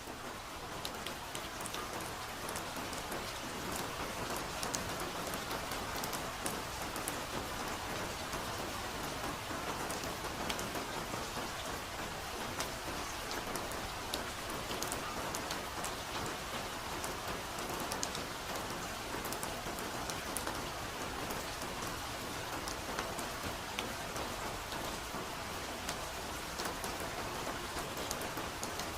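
Steady, soft rain falling, with many individual drops ticking sharply through the even hiss.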